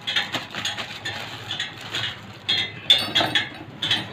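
Sharp metallic clinks and taps of tools on the steel spokes of a spoked motorcycle wheel being trued, one strike ringing briefly about three seconds in.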